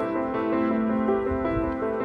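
Background music: a keyboard melody moving in steady, stepwise notes over a held low note.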